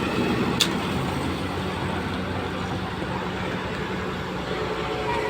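A JCB machine's diesel engine running steadily, with a sharp click about half a second in.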